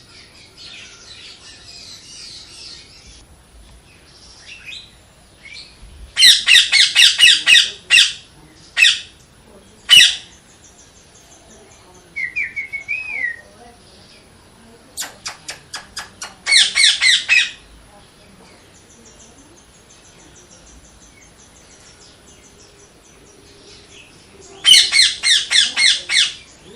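Parrot calling in loud bursts of rapid, harsh repeated squawks, each burst a second or two long, with a short warbled whistle in between.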